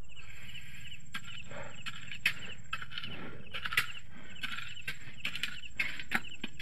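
Hoes striking and scraping loose gravelly soil, a short stroke roughly every half second, over a steady chorus of night insects chirping.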